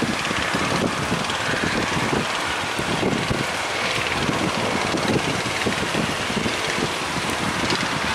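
Strong wind buffeting the microphone, with the rush of surf behind it, steady throughout.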